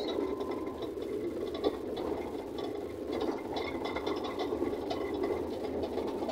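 Truck cab interior on a rough dirt road: steady engine and road noise with constant rattling and clicking from the cab, and one sharper knock about a second and a half in.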